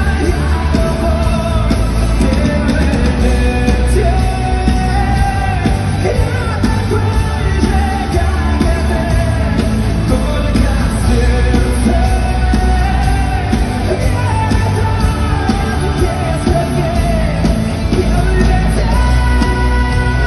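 Loud live rock-pop music through a concert sound system, with heavy bass and sustained pitched lines, and voices singing over it.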